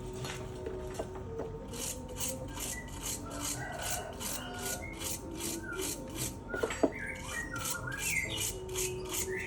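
A stiff brush scrubbing an engine part with quick back-and-forth strokes, about three a second, that start about two seconds in. There is a single sharp knock about two-thirds of the way through.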